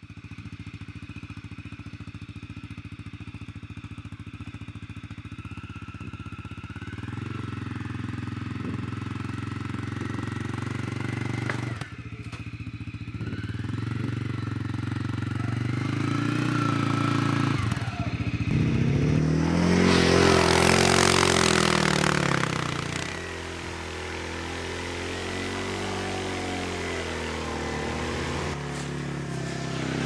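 CF Moto CForce 400S ATV's single-cylinder engine running steadily, its pitch stepping up and down. About twenty seconds in it gets louder and revs up and down under a rushing noise, then settles back.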